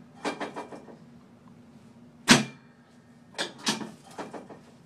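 A chiropractic adjustment of the hip and pelvis: one sharp, loud thump against the adjusting table about two seconds in, then a few lighter knocks and clicks as the leg and body are repositioned, over a faint steady hum.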